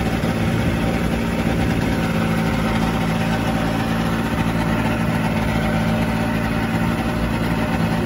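Microlight trike's engine idling at a steady, unchanging speed.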